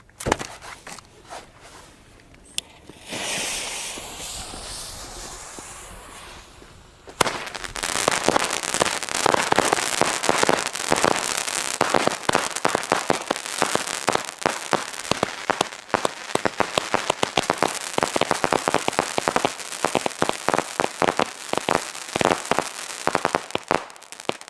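Multi-tube consumer firework cake firing: a few seconds of hissing, then from about seven seconds in a rapid, dense string of shots and crackling bursts that keeps going, dozens of sharp pops overlapping.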